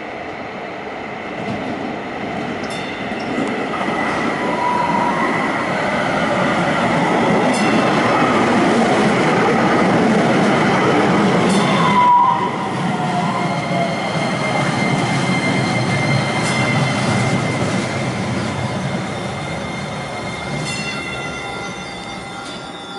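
Kinkisharyo Super LRV light-rail train pulling into a station and running past close by, wheels rumbling on the rails, loudest midway and fading as it slows. A steady high whine runs underneath, brief wheel squeals come about 5 and 12 seconds in, and a falling whine follows the second squeal.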